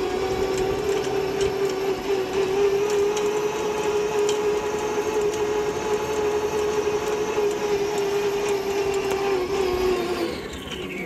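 Electric drive of a converted Hefty-G cultivating tractor (a forklift DC traction motor driving through the transmission) running with a steady whine while the tractor moves along the rows. About ten seconds in, the whine falls in pitch and the sound drops.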